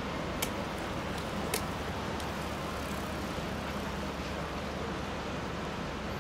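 Steady outdoor city noise: a low rumble and hiss of wind and distant traffic, with two sharp ticks in the first two seconds.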